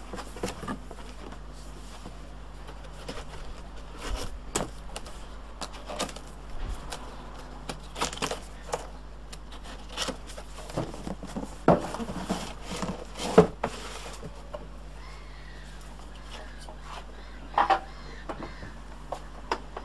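Cardboard packaging being handled as an appliance is pulled from its box: scraping and rustling with scattered sharp knocks, the loudest about two thirds of the way through.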